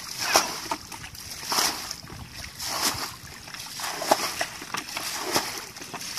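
Muddy water splashing and sloshing as buckets are scooped through a shallow pool and emptied: the pool is being bailed out by hand to catch the fish. The splashes come unevenly, roughly one every second.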